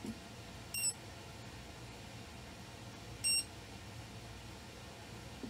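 Two short, high-pitched electronic beeps about two and a half seconds apart, over a faint steady hum.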